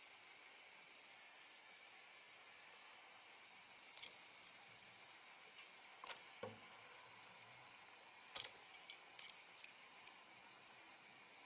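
Steady, high-pitched chirping of feeder crickets, with a few short, sharp clicks scattered through.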